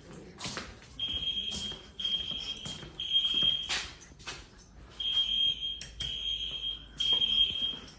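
Building fire alarm sounder going off in a temporal-three evacuation pattern: three high-pitched beeps about a second apart, a pause, then three more. A few knocks sound over it, the loudest near the middle.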